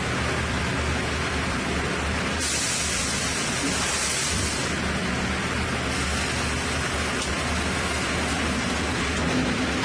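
Sawmill machinery running steadily with a low hum and a noisy rush, with a louder high hiss for about two seconds a few seconds in.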